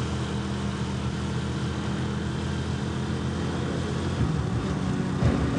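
Motor vehicle engine running with a steady low hum, its note shifting higher near the end, with a few light knocks from the road traffic a little before.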